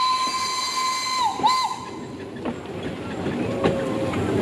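Steam whistle of a B25 rack-tank steam locomotive giving one long steady blast that stops about a second and a half in, then two quick short toots. After that, the locomotive rolls on more quietly with light clicks from the rails.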